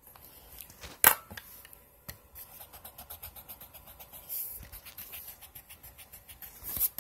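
Quick, soft scratching strokes of a pencil on sketchbook paper, several a second, after a sharp click about a second in.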